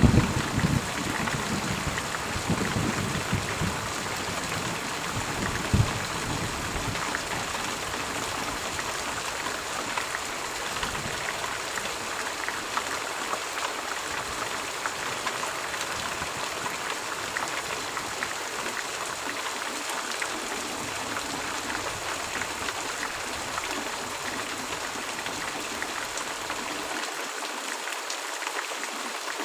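Steady rain, an even hiss of falling drops. A low rumble of thunder fades out over the first few seconds.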